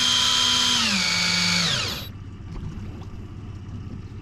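Electric deep-drop fishing reel's motor whining as it winds in line after the weight hit bottom. The whine steps down in pitch twice as it slows, then cuts off about two seconds in.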